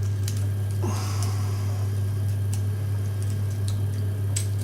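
Lock pick and tension bar working the pins of a cylinder lock: scattered light metallic clicks over a steady low hum.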